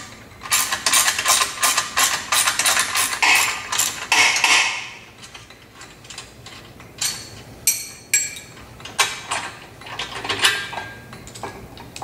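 Socket ratchet wrench clicking in quick runs as the cart's wheel bolts are worked loose, then slowing to a few separate clicks after about five seconds.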